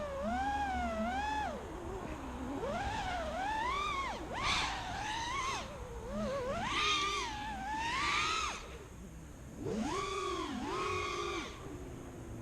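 FPV racing quadcopter's brushless motors whining, the pitch swooping up and down again and again with the throttle; briefly quieter about nine seconds in.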